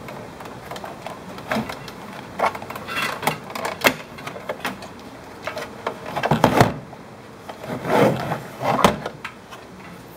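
Handling noise from a plastic plug and a plastic box being fitted together and moved: scattered clicks, knocks and rubbing, with louder clusters in the second half.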